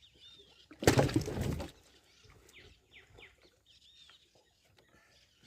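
Small birds chirping faintly in short scattered calls, with one loud hissy burst of noise lasting under a second about a second in.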